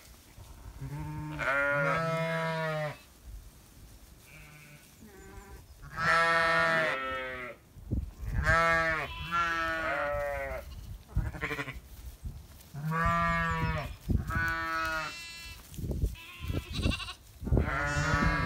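Zwartbles ewes and lambs bleating: about six long calls a few seconds apart, with fainter, higher calls between them.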